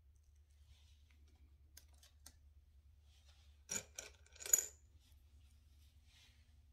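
A few faint clicks, then about four seconds in a quick run of three sharp metallic clinks within a second, over a low steady hum.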